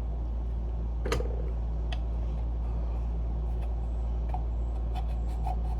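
Scattered light clicks and taps as a screwdriver and small metal chime parts are handled during cleaning, the sharpest about a second in and a run of faint ticks near the end, over a steady low hum.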